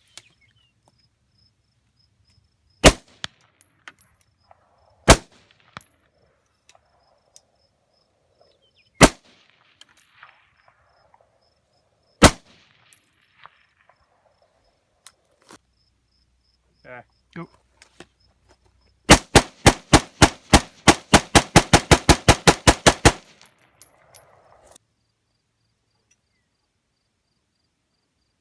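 Gunshots: four single shots a few seconds apart, then a rapid string of about twenty shots over about four seconds that speeds up as it goes.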